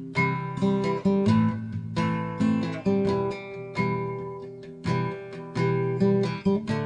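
Background music: an acoustic guitar played with plucked notes and strummed chords at a steady pace.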